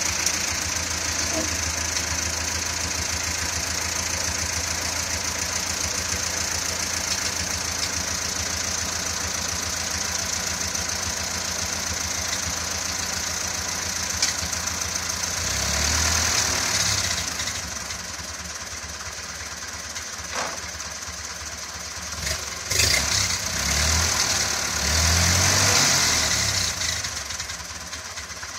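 1951 Ford 8N tractor's four-cylinder flathead petrol engine idling steadily. About halfway through, and several more times near the end, it is revved up and lets back down.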